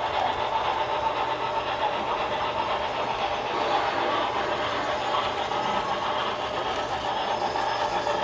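Model passenger train running past on the layout, its coach wheels rolling steadily along the model track.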